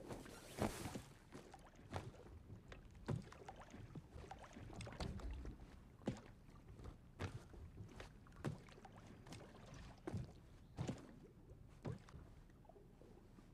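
A child bouncing on a waterbed: soft thumps about once a second as the water-filled mattress sloshes under each bounce.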